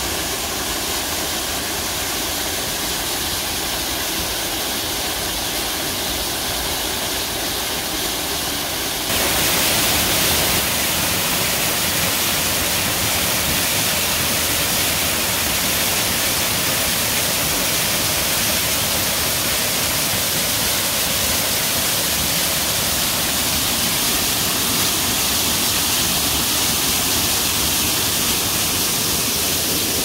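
Waterfall rushing: a steady, loud wash of falling water that steps up suddenly in level about nine seconds in.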